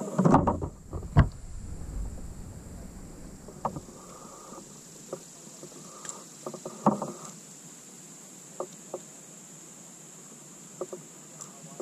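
Handling noises of a smallmouth bass being unhooked from a crankbait in a kayak: loud bumps and thumps in the first second and a half, then scattered light clicks and knocks as the hooks are worked free.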